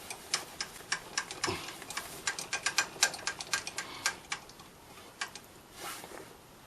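Small metal tools or parts being handled and knocking together: a quick, irregular run of sharp ticks and clicks that thins out about five seconds in.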